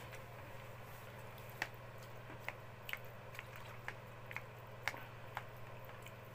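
Faint eating sounds: a person chewing a plate of macaroni, with a dozen or so small, irregular clicks over a steady low hum.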